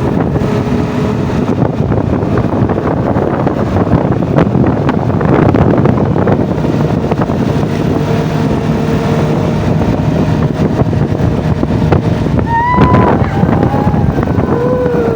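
Off-road vehicle's engine running steadily under way, with wind buffeting the microphone.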